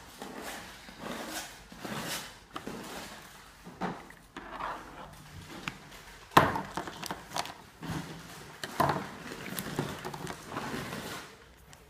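A string of short rustling, scraping noises with several sharp knocks; the loudest knock comes about six and a half seconds in.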